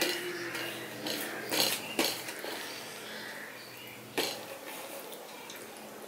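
Hand mixing rice and curry on a stainless-steel plate, the fingers scraping and knocking against the metal in a few sharp clicks, mostly in the first two seconds and once more about four seconds in.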